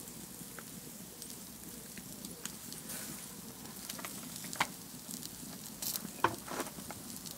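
Wood fire crackling and hissing under a griddle of cooking tortillas: a steady sizzling hiss with scattered sharp pops, the loudest about four and a half and six seconds in.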